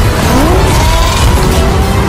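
Loud music soundtrack with a rising pitch sweep about half a second in.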